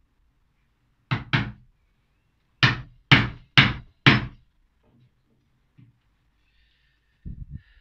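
Mallet striking the wooden handle of a chisel, chopping the drilled holes square in 9mm plywood: a quick pair of blows about a second in, four heavy blows about half a second apart, then a few quicker, lighter taps near the end.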